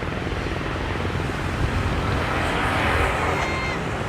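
A motor engine running steadily with a low drone, with a hiss that swells a little over two seconds in.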